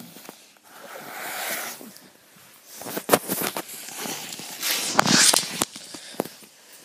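Handling noise from a phone camera being picked up and adjusted: jacket fabric rustling against the microphone, then several sharp knocks and taps, loudest about five seconds in.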